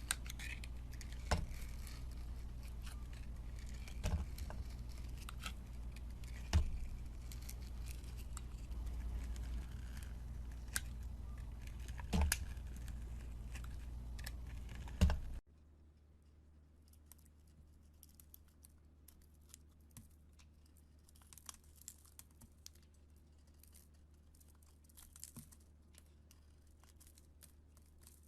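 A knife chopping bars of soap. First come sharp knocks of the blade every second or two over a low hum. A cut about halfway through drops to quieter, rapid crackling and crunching as soap is cut and crumbles.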